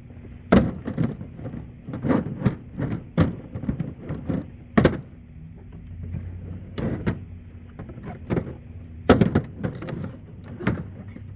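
A series of irregular knocks and thuds, about a dozen, over a steady low hum.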